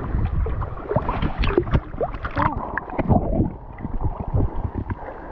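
Shallow seawater splashing and sloshing in irregular bursts as a small shovelnose shark is handled and released, turning to muffled gurgling once the microphone goes under the water.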